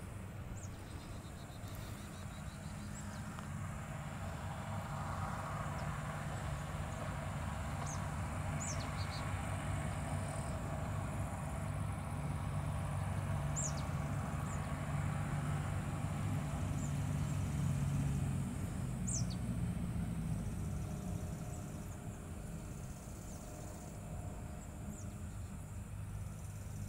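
A distant engine's low, even drone that swells over several seconds, peaks about two-thirds of the way through and then fades, like a vehicle passing. A few short, high, falling chirps are heard over it.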